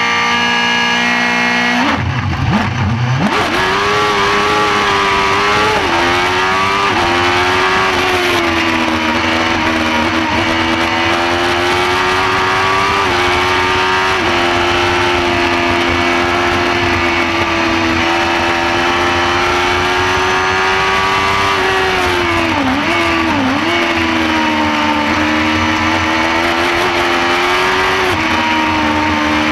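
Shortcar race car's motorcycle engine heard from the cockpit: held at steady high revs on the grid, then launching about two seconds in. It runs flat out at high revs, with gear changes that step the pitch and two quick dips in revs past the middle.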